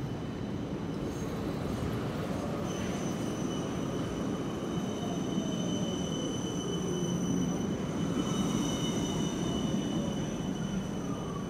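A low-floor articulated tram runs past at close range on street track with a steady running rumble. From a few seconds in there is a high steady squeal, and a lower whine slides down in pitch as the cars go by.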